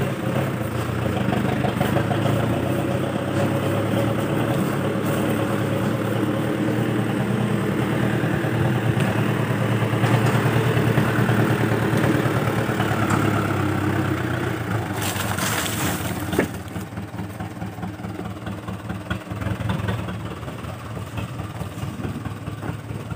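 Mitsubishi Canter dump truck's diesel engine running steadily as the truck crawls along a rutted dirt track. A short burst of hiss comes about fifteen seconds in, after which the engine sound drops lower as the truck moves away.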